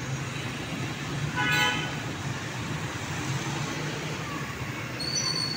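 Busy road traffic: cars and motorcycles running with a steady low engine hum, and a vehicle horn honking once, loudly, about a second and a half in. A thin high squeal sounds near the end.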